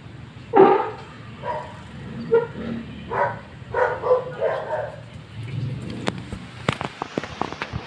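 A dog barking repeatedly for about four seconds, the first bark the loudest. It is followed near the end by a rapid string of sharp cracks.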